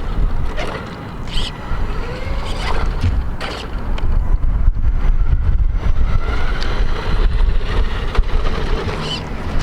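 Wind buffeting the microphone, a loud uneven rumble, with faint sounds of people in the background.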